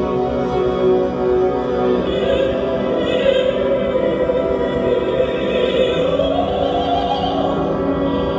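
Orchestral classical music with operatic singing: sustained chords, with a wavering voice entering about two seconds in.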